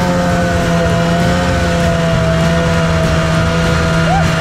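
Snowmobile engine running steadily, carrying three riders at once, its drone sagging slightly in pitch over a few seconds.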